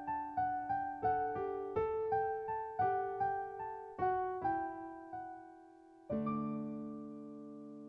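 Gentle solo piano music: a flowing run of notes that slows and fades, then a single chord struck about six seconds in and left to ring.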